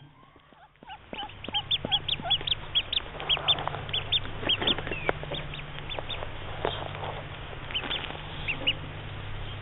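Newly hatched mallard ducklings peeping: a quick string of short, high chirps, several a second, starting about a second in, with a few lower calls mixed in early.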